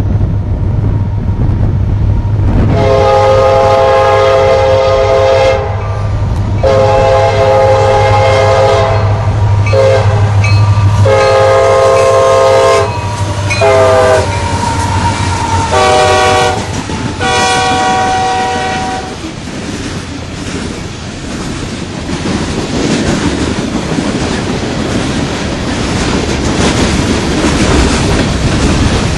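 CSX diesel freight locomotive's air horn sounding long, long, short, long, the grade-crossing signal, over the engine's low drone, then three more blasts as the locomotive passes. After that the horn stops and the open-top hopper cars rumble and clatter by.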